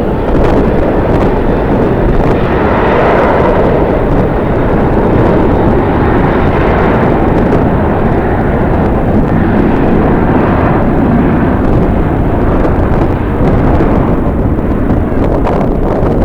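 A jet airliner's engines running loud, the noise swelling and easing several times, mixed with strong wind buffeting the microphone.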